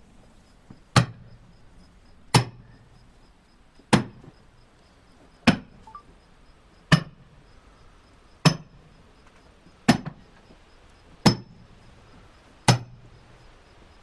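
Splitting maul striking steel splitting wedges in a black oak log, a sharp metallic clank with a short ring about every one and a half seconds, nine blows in steady rhythm.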